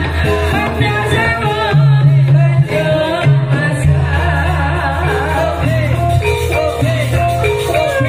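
Live Javanese jathilan accompaniment music: a singing voice over struck melodic percussion and drums, with a deep sustained bass line.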